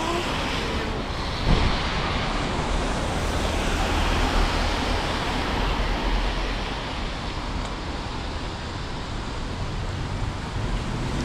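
Steady downtown street traffic: an even hiss of passing vehicles over a low rumble, with a single sharp thump about a second and a half in.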